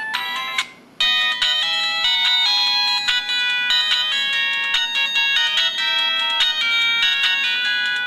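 Built-in polyphonic ringtone melody from a Can-U HS5000 mobile phone. One short tune cuts off, and about a second in a bright, busy synthesized melody of quick high notes starts and plays on.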